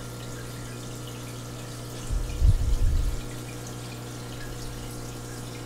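Aquarium filter water trickling, with faint scattered drips, over a steady low hum. A short low rumble comes about two seconds in and lasts about a second.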